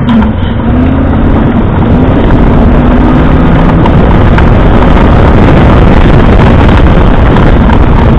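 Land Rover comp safari car's engine running hard under load, heard loud from inside the cab, with the wavering note of the engine under a dense noise of tyres working through mud and water.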